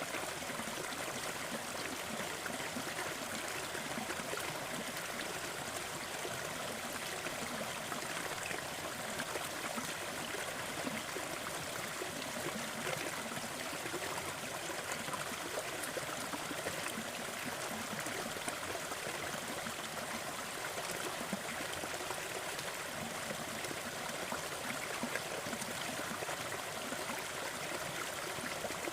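Small waterfall splashing and trickling into a forest stream, a steady even rush of water.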